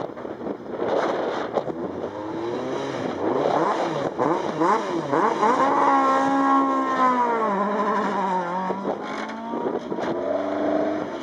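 Ford Escort Mk2 rally car's engine revved up and down several times, then held at high revs, dipping once and climbing again as it pulls away from the stage start.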